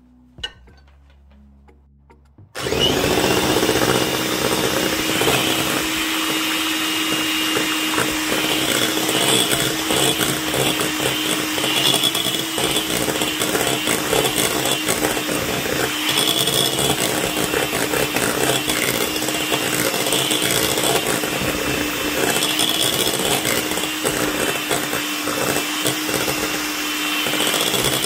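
Electric hand mixer switched on a couple of seconds in and running steadily at one speed, its twin beaters whisking pancake batter in a glass bowl.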